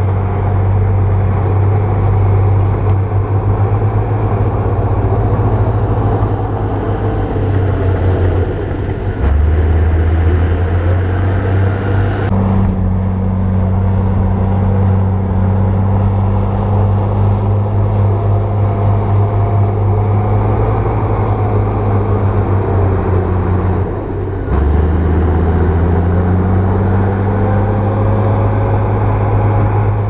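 Heavy diesel engine of earthmoving machinery running with a steady low drone. Its note changes abruptly a few times.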